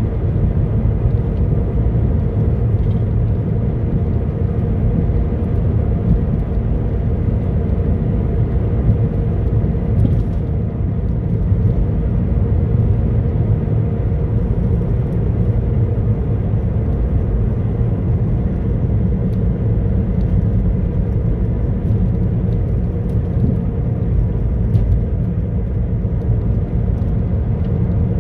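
Steady low rumble of a car driving at a constant speed, heard from inside the cabin: tyre and road noise with the engine underneath.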